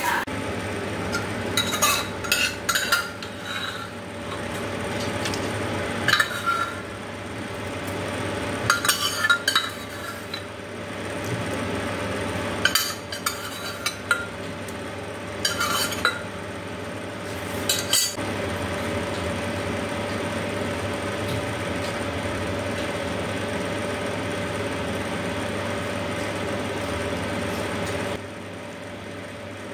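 Metal spoon scraping and clinking against a non-stick pan and a stainless steel bowl as curry is served out, in scattered bunches of clinks, over a steady hum that drops away near the end.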